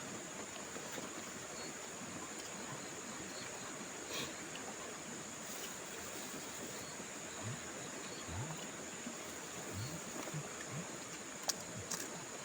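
Riverside ambience: a steady high insect trill over a constant hiss of flowing water. A few faint, short, low rising calls come in the second half, along with a few soft clicks.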